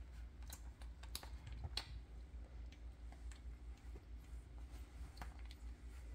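Young Doberman puppies nursing: faint irregular suckling clicks and smacks, a few of them sharper, over a low steady hum.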